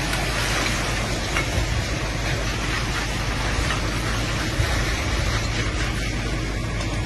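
Steady low engine rumble under an even hiss of a fire hose jet spraying water onto a heap of burning rubbish dumped from a refuse truck.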